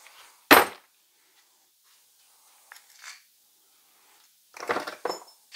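Metal tools and engine parts clattering as they are set down on a workbench: one loud clank about half a second in, then a few light clinks and a short burst of rattling with a brief metallic ring near the end.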